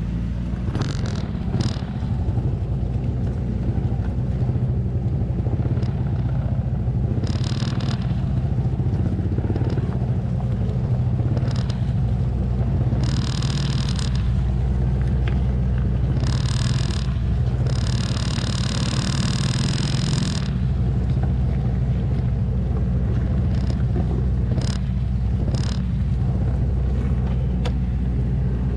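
Log truck's engine labouring slowly through deep mud, a steady low drone. Several short high-pitched squeals come and go over it, the longest lasting about two seconds past the middle.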